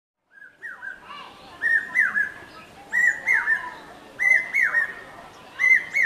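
Common hawk-cuckoo (papiya) calling: a series of loud whistled phrases of two or three rising-and-falling notes, one about every second and a quarter, starting just after the opening moment.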